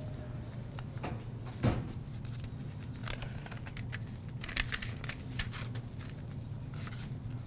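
Light handling noises from tearing prosciutto out of its plastic pack: soft crinkling and scattered small clicks, with one dull knock just under two seconds in, over a steady low hum.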